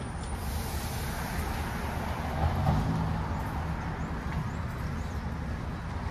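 Steady vehicle rumble and noise, swelling briefly a little before halfway.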